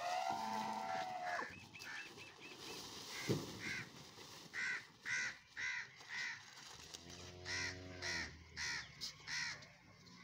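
A crow cawing in a series of short, repeated caws, about two a second, from about three seconds in. A goat bleats with a long call at the start and again around seven seconds in.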